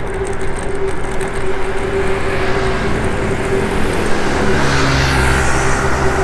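Road traffic noise heard from a moving bicycle, with a steady hum throughout. About four and a half seconds in, a motor vehicle's engine comes up louder as it passes close by.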